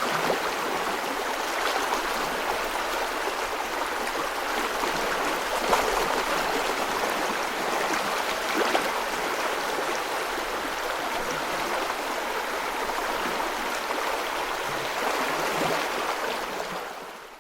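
Steady rushing and trickling of running water, with a few faint splashes, fading out at the very end.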